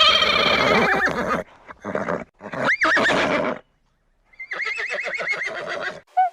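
Animal calls: loud wavering, pitched cries in several bouts, the last one after a brief silence about four seconds in.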